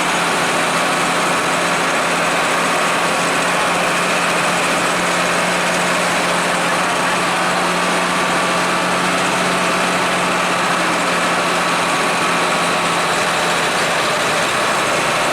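Hino AK-3 bus's diesel engine running steadily, a continuous low drone that holds an even pitch with no revving or gear changes.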